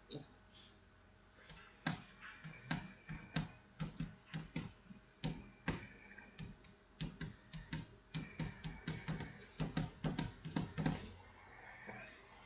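Hollow hard-plastic model capsule being handled and worked on: an irregular run of sharp clicks and knocks, several a second, starting about two seconds in and stopping near the end.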